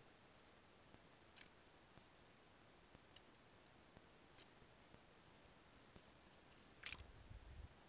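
Near silence broken by a few faint, sharp clicks of a thin metal probing rod tapping against coral in shallow water; the loudest comes near the end, followed by a low rumble.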